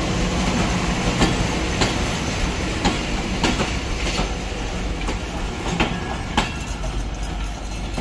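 Bangladesh Railway intercity passenger coaches rolling past close by: a steady rumble with sharp clacks of the wheels over the rail joints, easing off toward the end as the last coach goes by.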